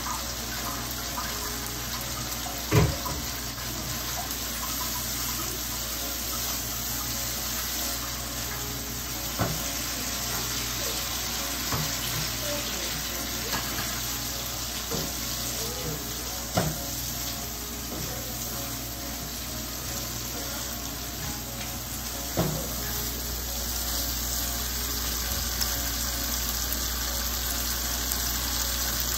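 Onion-and-spice curry masala with potato slices sizzling steadily in a frying pan, with a few sharp knocks against the pan, the loudest about three seconds in.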